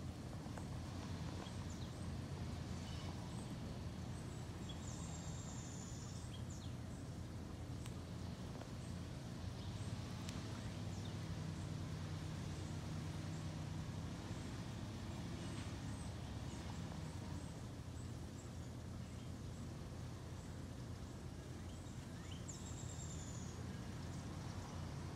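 Outdoor background sound: a steady low rumble with a few short bird chirps, and two longer high bird calls, one about five seconds in and one near the end.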